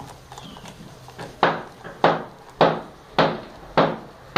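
Siamese cat lapping water from a thin stream running from a tap: a sharp splash about every half second, starting a little over a second in.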